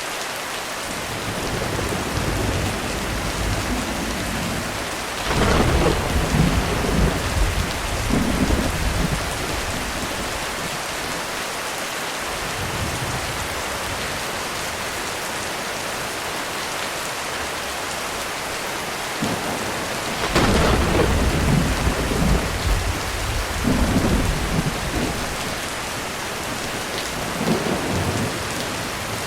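Heavy rain falling steadily on a roof, with thunder: two sharp cracks, about five seconds and about twenty seconds in, each rolling on for several seconds, and softer distant rumbles between them.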